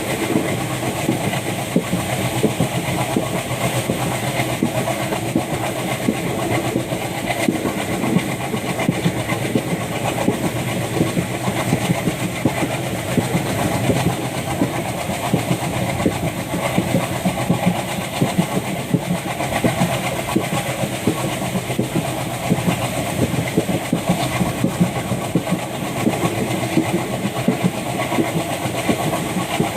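WDG3A ALCO diesel locomotive's engine chugging steadily as the train runs, heard from inside the coach coupled behind it, with wheels clattering over the rails.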